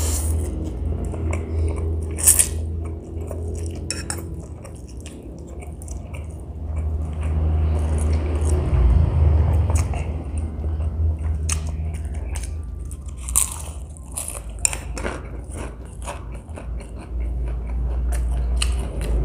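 Close-miked eating of spicy noodles: chewing and biting, with sharp crunchy clicks scattered throughout and several close together about two-thirds of the way in, over a steady low hum.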